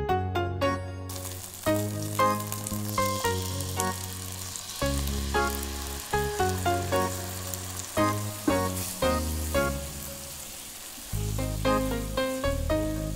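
Pork rolls in a frying pan of hot oil sizzling as the sauce is added and tossed, the hiss starting suddenly about a second in. Background music with piano-like notes and a bass line plays throughout.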